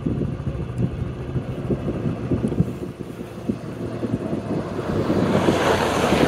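Rally pickup truck speeding across loose sand, its engine and tyre noise growing louder over the last second or two as it approaches and passes close by. Wind buffets the microphone throughout.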